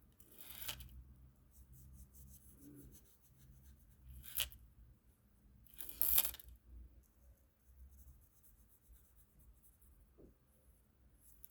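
A coloring tool scratching and rubbing on paper in quick light strokes, with three louder strokes: about half a second in, just after four seconds, and around six seconds.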